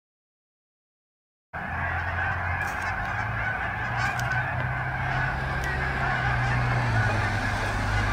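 Dead silence for about a second and a half, then a steady outdoor din with a mid-pitched clamour over a low, even hum.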